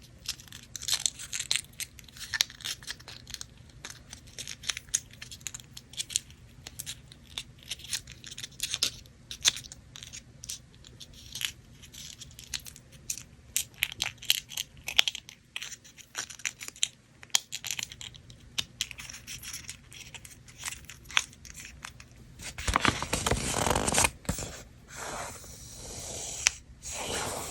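Paper from a miniature bakery kit being handled close up: a run of small sharp crinkles and ticks as it is torn and crumpled, with a longer, louder rustle near the end.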